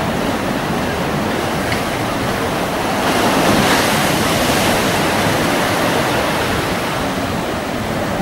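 Steady rush of sea water and wind around a boat at sea, swelling for a couple of seconds about three seconds in.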